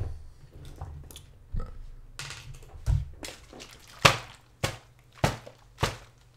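A juice bottle knocked repeatedly against a person's head: a dull thump, then a run of four sharp knocks, close to two a second, in the second half.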